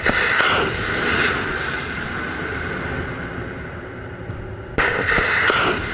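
Rockets firing from a HIMARS launcher: a loud, rough roar that starts suddenly and slowly fades, then a second launch roar starts suddenly near the end.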